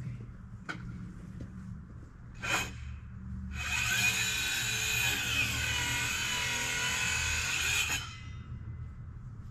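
Power tool whining for about four and a half seconds. Its pitch sags in the middle, then rises again before it cuts off suddenly. A short knock comes about a second before it starts.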